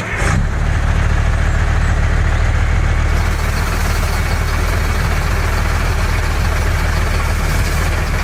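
Small engine of a DIY mini tractor running steadily at an even speed.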